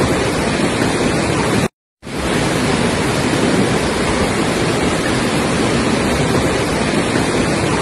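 Floodwater rushing down a street in a torrent: a loud, steady rush of water, cut by a brief dropout just under two seconds in.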